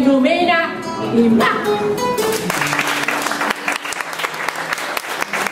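A voice singing over acoustic guitar, ending about two seconds in, then a small audience clapping.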